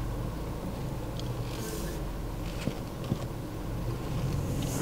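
Low, steady rumble of a car creeping forward at idle into an automatic car wash, heard from inside the closed cabin, with two faint clicks near the middle. The noise swells near the end as the wash equipment starts up.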